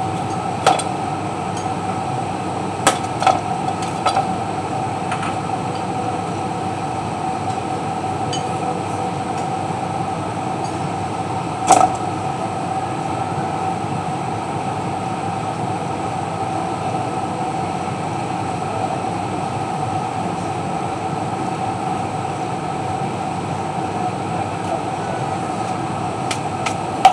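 A steady mechanical hum with a constant tone. A few sharp clicks stand out, the loudest about twelve seconds in: a knife blade striking a stainless-steel bench as gnocchi dough is cut into pieces.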